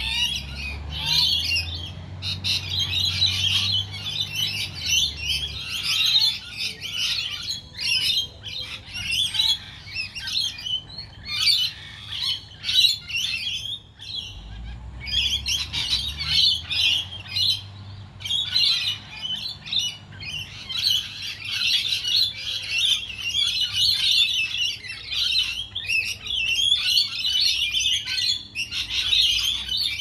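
A large flock of rainbow lorikeets calling without pause, a dense chatter of short, high calls.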